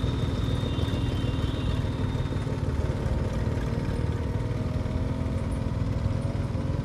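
Motorcycle engine running steadily at low revs, an even drone with no rise or fall in pitch.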